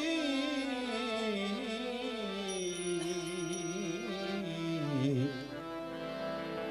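Music: a male singer holding one long, wavering note of a devotional bhajan, drifting slowly downward over a steady sustained accompaniment. The sung note ends about five seconds in and the accompaniment carries on alone.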